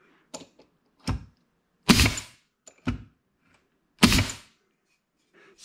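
16-gauge pneumatic finish nailer firing twice, about two seconds apart, driving nails into a thin wood strip. Each shot is a sharp crack that dies away quickly, with a few lighter knocks between them.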